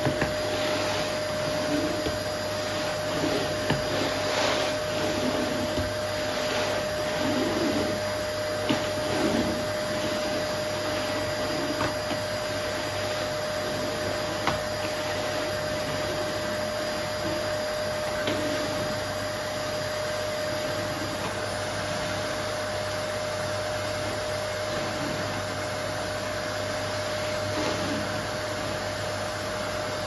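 Canister vacuum cleaner running steadily, a constant whine over its airflow noise, with a few light knocks in roughly the first ten seconds.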